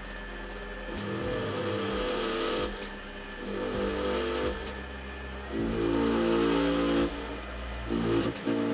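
Metal lathe turning an aluminium disc while a carbide tool takes a facing cut. The cutting noise swells and drops several times as the tool goes in and out of the cut.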